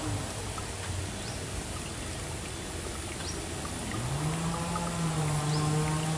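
Steady rush of flowing river water. About four seconds in, a long, steady low-pitched tone sets in and holds.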